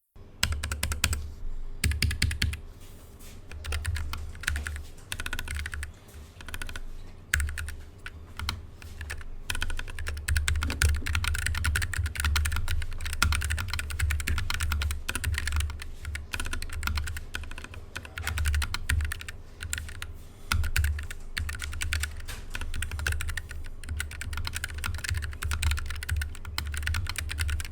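Typing on a Keychron K3 Pro low-profile mechanical keyboard with Gateron red switches: quick, continuous runs of key clacks, with a brief lull about five seconds in.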